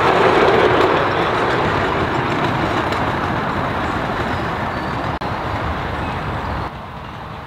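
A 7¼-inch gauge miniature passenger train running along the track, fading steadily as it moves away. The sound drops suddenly near the end.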